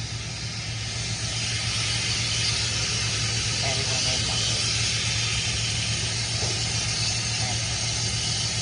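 A steady hiss over a steady low hum, with faint voices in the middle.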